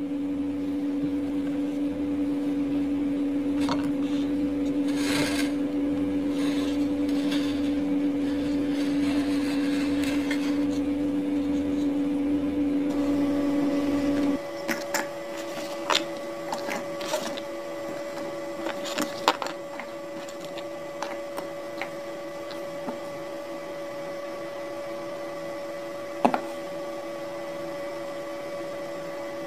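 A steady background hum that switches to a different, higher hum about halfway through, with scattered light clicks and knocks as chillies and garlic cloves go into a plastic food-chopper bowl.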